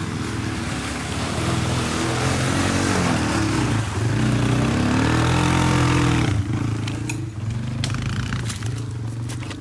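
ATV engine revving hard through mud, its pitch rising and falling, under a rushing noise that stops sharply about six seconds in. The engine then runs on more quietly.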